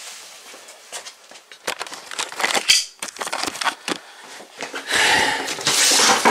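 Rustling, scraping and clicking as a garden hose is handled and dragged across a concrete floor. A loud rushing noise starts about five seconds in.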